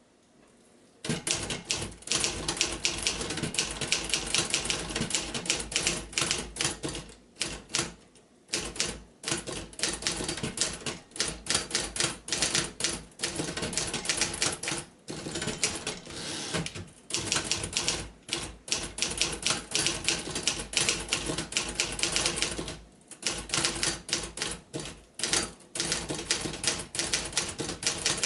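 Restored 1956 Remington Quiet-Riter portable typewriter being typed on: rapid keystrokes starting about a second in, in runs broken by brief pauses.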